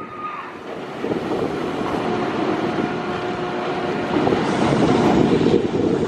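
Bolliger & Mabillard sit-down steel roller coaster train rumbling along its track through the loops. The sound swells about a second in and then stays loud.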